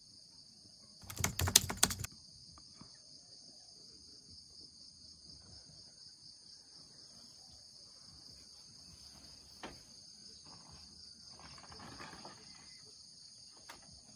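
Steady insect chorus, several unbroken high-pitched tones held throughout. A brief loud clatter about a second in.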